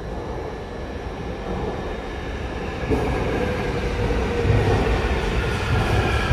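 Seoul Subway Line 2 electric train pulling away from the platform: a brief click about three seconds in, then the motors' whine rises in pitch over a growing low rumble as the train picks up speed.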